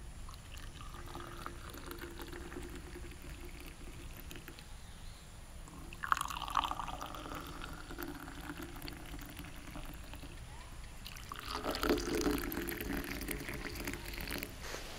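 Milk tea poured in a thin stream from a stainless steel kettle spout into glass tumblers, splashing and filling the glass. A fresh pour starts about six seconds in and again near twelve seconds.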